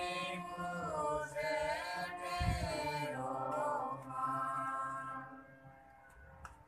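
A congregation singing a hymn together, several voices at once, ending on a held note that fades out about five seconds in.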